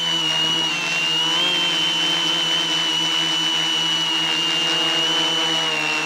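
Quadcopter's electric motors and propellers whining steadily, close to the microphone, the pitch wavering slightly as the motor speed shifts.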